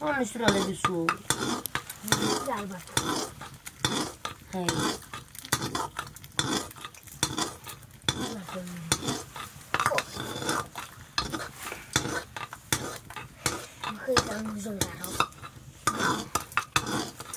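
A metal utensil stirring in a cooking pot, clinking and scraping against it many times at an uneven pace, with food sizzling as it fries.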